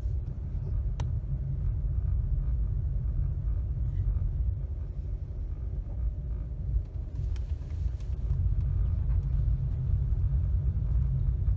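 Steady low rumble of road and engine noise inside a moving car, with a sharp click about a second in.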